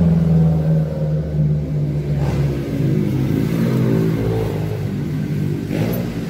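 A motor vehicle's engine running close by: a loud low hum, steady at first, then shifting in pitch through the middle as if the engine is revving.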